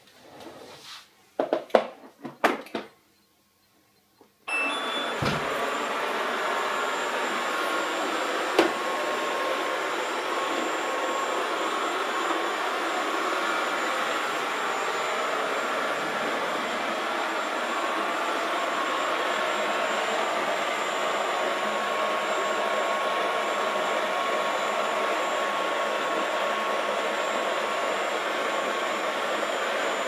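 A few knocks as a Haier XShuai HXS-C3 robot vacuum is handled, then a short pause. At about four and a half seconds in it starts with a short beep and runs steadily, a constant suction and brush noise with a faint whine.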